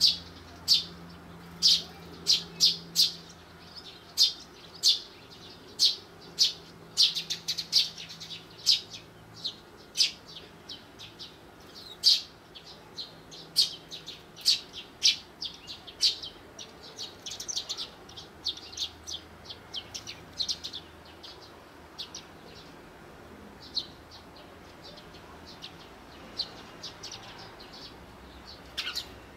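Eurasian tree sparrows chirping: a quick run of short, sharp chirps, thickest in the first half and sparser later, with a couple of louder ones near the end.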